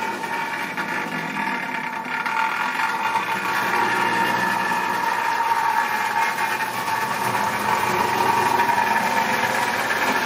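Marx tinplate toy locomotive running on three-rail track: a steady electric-motor whine over the rumble of metal wheels on the rails, growing louder about two seconds in.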